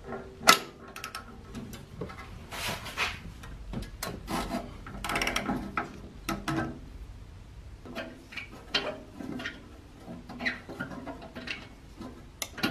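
Ratchet wrench with an oxygen-sensor socket being worked to loosen an upstream O2 sensor: irregular ratchet clicks and metal tool scrapes, with one sharp loud click about half a second in.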